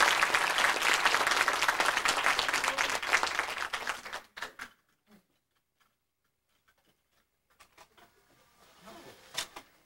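Audience clapping, fading out about four seconds in, followed by quiet with a few faint knocks.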